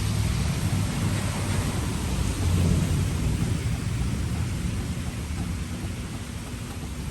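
Thunderstorm: steady rain hiss with low rolling thunder that swells about two and a half seconds in, then eases off toward the end.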